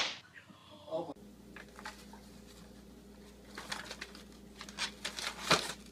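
A sharp smack as a plastic toy golf club strikes a ball teed up on a man's face, with a brief vocal sound after it. Then faint crackling and rustling of glossy magazine pages being grabbed and crumpled by a baby, over a low hum.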